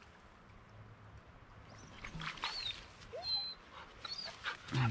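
Black Labrador retriever whining: a few short, high-pitched whimpers that rise and fall, starting about two seconds in.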